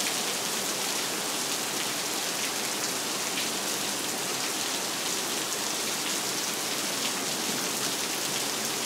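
Heavy rain pouring onto wet asphalt and puddles, a steady even hiss of drops.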